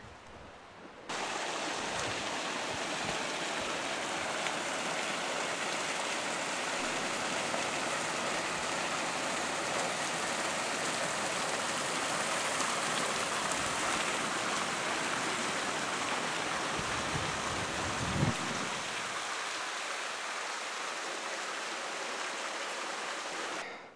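Steady rush of water pouring over a small concrete spillway, starting abruptly about a second in. A single brief knock sounds late on.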